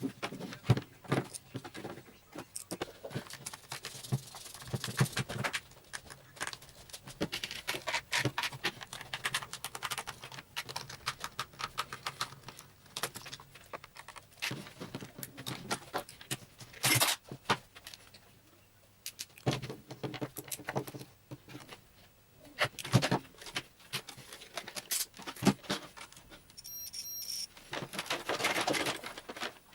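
Irregular clicks, taps and scraping of small hard plastic and metal parts being handled, as when a hair dryer is taken apart by hand.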